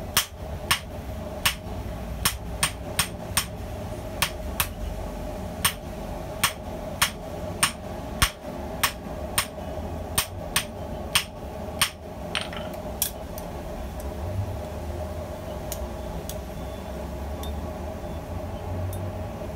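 Hand hammer striking hot bearing steel on the convex face of a small stump anvil, forging a straight razor blank, about two blows a second at an even pace; the blows stop about twelve seconds in. A steady hum runs underneath.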